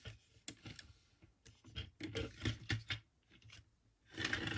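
Small plastic parts of an action-figure upgrade kit clicking and scraping as they are handled and tabbed into place: a scattering of light, irregular clicks.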